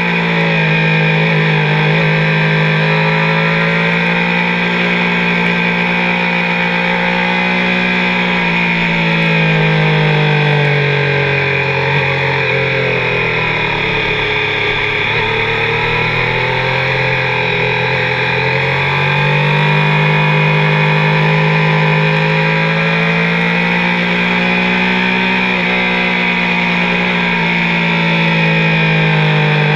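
Car engine running at steady, fairly high revs. The revs fall away gradually for several seconds around the middle, then climb back up, with a shorter dip near the end.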